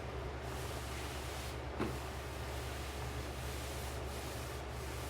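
Steady background hiss and low hum, with one small knock about two seconds in.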